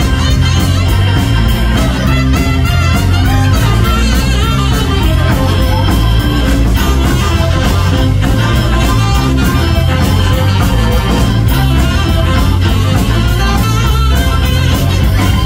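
Live blues band playing loud: a saxophone playing over drums, bass and guitar.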